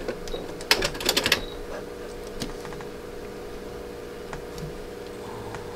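A quick run of sharp clicks and taps about a second in as a fabric-covered rope bowl is pressed and shifted at a stopped sewing machine, then a few faint ticks over a steady low hum.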